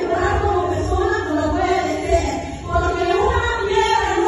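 Singing through a microphone, with long held notes.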